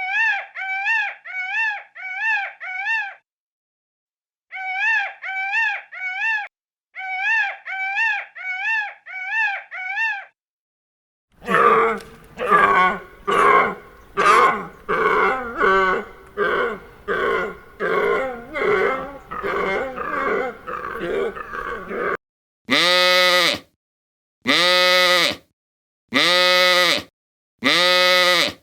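A run of different animal calls cut together. First come groups of four or five short, repeated calls that rise and fall in pitch. About eleven seconds in, a stretch of dense grunting and chatter follows. From about twenty-two seconds in, single long pitched calls repeat evenly, about one every second and a half.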